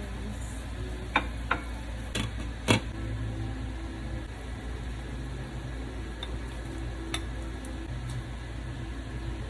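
Cooking sounds while chicken soup is made: a steady low hum with a few sharp clinks of a utensil against cookware, four in the first three seconds and one more near the end.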